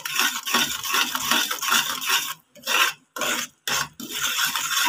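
Metal spoon scraping and stirring thick, bubbling jaggery syrup in a pan, a steady rasping scrape. The sound cuts out briefly several times a little past the middle.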